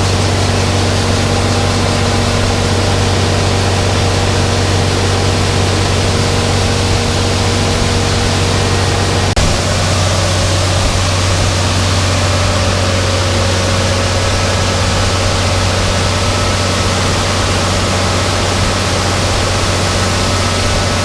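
Tractor engine running steadily under a low hum with several steady whining tones. About nine seconds in there is a click, after which the pitch of the whine shifts.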